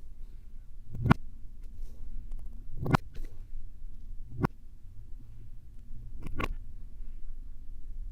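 Kinetic sand being handled: four soft thuds at roughly one-and-a-half- to two-second intervals, over a low steady rumble.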